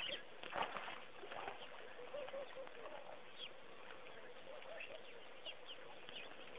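Water splashing as a baby elephant wades and kicks in a shallow waterhole, with a few sharper splashes in the first second or so. Birds give short calls now and then over a steady hiss.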